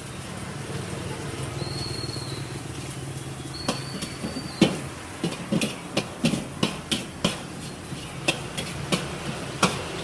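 A run of irregular sharp knocks, roughly two a second, starting a few seconds in, over a steady low hum.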